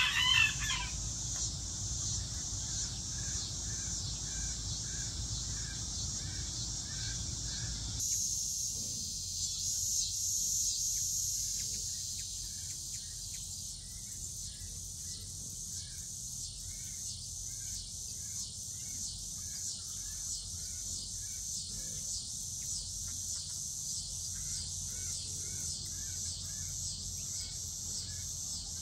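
Insects chirping in a steady high pulse, about two pulses a second, with a second, lower chirp repeating at about the same rate. A short bird call sounds right at the start, and a low rumble fades out about eight seconds in.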